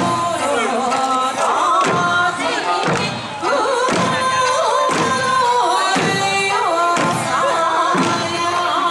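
Eisa dance music: a singing voice over an Okinawan folk song, with heavy drum strikes about once a second.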